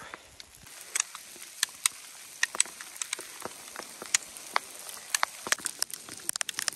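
Light hail falling on a sandy, rocky mountain slope. Small hailstones strike the ground and gear in sharp, irregular ticks over a faint hiss, and the ticks come thicker near the end.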